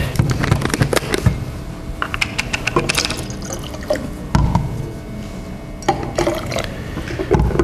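6 molar nitric acid solution poured from a plastic bottle into a tall glass cylinder, with sharp clicks and knocks from the cap and the bottle and glassware being handled, most of them in the first second or so.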